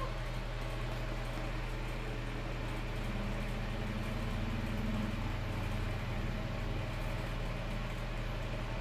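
Steady mechanical hum with an even hiss over it, like an appliance running in a small room. A low part of the hum swells slightly between about three and five seconds in.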